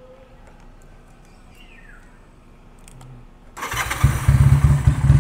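Motorstar Magnum 250's 250 cc parallel-twin engine (a Honda Rebel 250 clone with 360-degree firing) starts about three and a half seconds in and goes straight into a loud, steady idle with a low throb.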